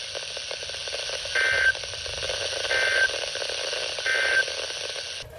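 Emergency Alert System end-of-message data tones from a weather radio broadcast: three short buzzy bursts about a second and a half apart over steady radio static, marking the end of the alert. The static cuts off suddenly near the end.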